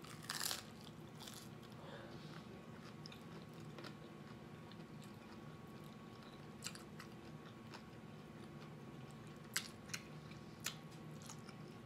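A crunchy bite into a hard-shell chicken taco about half a second in, then quiet chewing with a few small crunches and mouth clicks.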